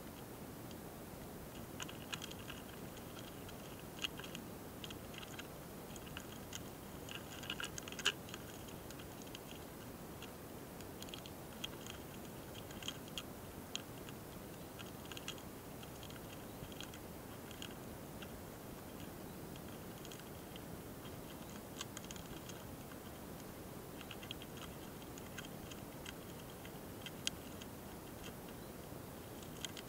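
Mating pair of small longhorn beetles (hosotora-kamikiri) recorded very close up: faint, irregular clicks and scratchy ticks in scattered clusters over a steady hiss, the busiest and loudest about eight seconds in.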